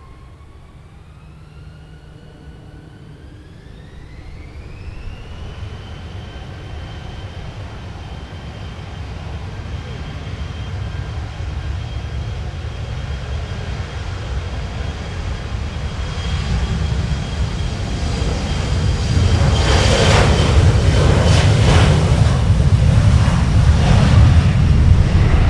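Regional airliner's engines spooling up: a whine rises steeply in pitch over the first few seconds, then holds steady while the sound grows louder, becoming loudest from about twenty seconds in as the aircraft draws close.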